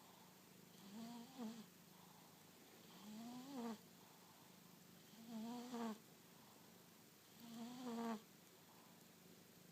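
Domestic cat snoring: four soft snores about two seconds apart, each a short pitched rasp that rises and falls.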